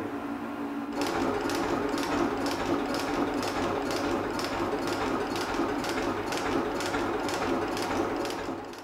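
Elliott 10M metal shaper starts running about a second in, its ram stroking back and forth with a regular clack at each stroke. The tool is taking a light skim cut, about 0.2 mm, off the face of an aluminium VW Golf Mk2 GTI cylinder head.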